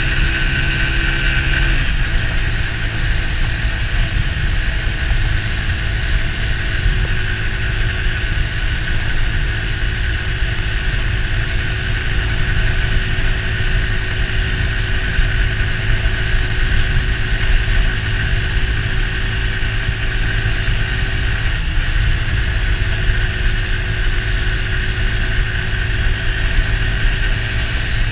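Orcal Astor 125 motorcycle's 125 cc engine running as it is ridden, under heavy wind rumble on the camera's microphone. The engine note changes about two seconds in and again about 21 seconds in.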